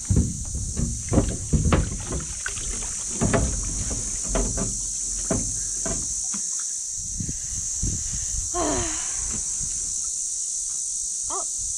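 Mesh crab pot hauled out of the creek and lifted aboard a small aluminium boat: splashing and water pouring off the netting, with knocks of the pot frame against the hull in the first few seconds. A steady high insect buzz runs underneath.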